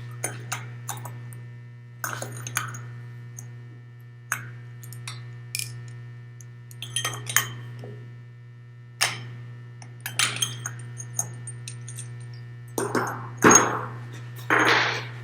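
Small-engine parts and hand tools clinking and knocking as they are handled, a series of scattered sharp clicks, with two longer, louder scraping sounds near the end. A steady mains hum runs underneath.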